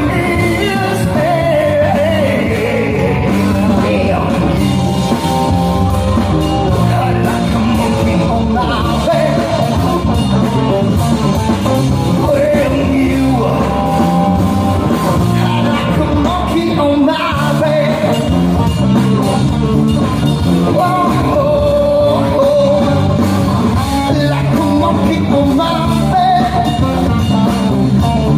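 Live rock band playing a song, a singer singing into a microphone over electric guitars, loud and without a break.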